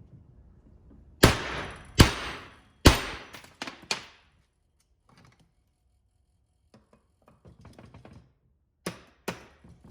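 Sharp metal-on-metal knocks, each with a ringing decay: three loud ones about a second apart and two lighter ones just after. Light clicking and handling follows, then two more knocks near the end.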